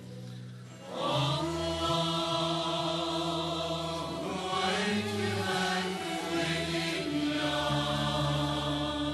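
Turkish religious concert music: long held melodic notes over a steady low drone, after a short lull about a second in.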